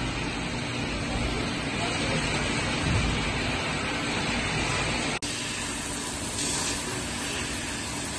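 Steady hum of a hydraulic CNC press brake during sheet positioning. After a sudden break it gives way to a fiber laser cutting machine at work, with short bursts of hissing assist gas from the cutting head.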